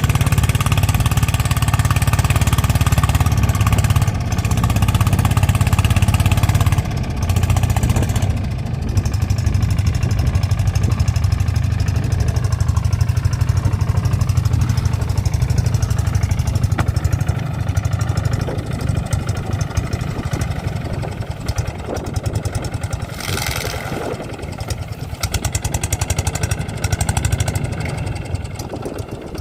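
Small boat's engine running steadily under way, a loud low drone that eases somewhat in the last third.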